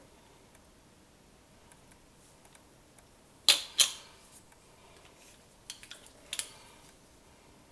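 Clear plastic coin capsules clicking as they are set down and knocked against one another on a wooden table: two sharp clacks about three and a half seconds in, then a quick run of lighter clicks a couple of seconds later.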